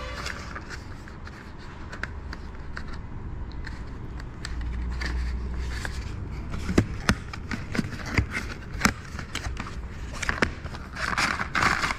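Paper leaflet and cardboard watch-box packaging being handled: rustling and scraping with a run of sharp clicks and taps that grow busier in the second half, and a brief rustle near the end.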